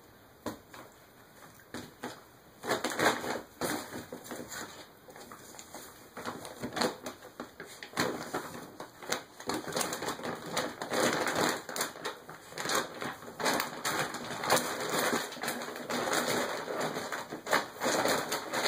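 Empty dog food bag crinkling and rustling as a small dog moves around inside it, pushing it across carpet. Sparse crackles at first, then near-continuous crinkling from about two and a half seconds in.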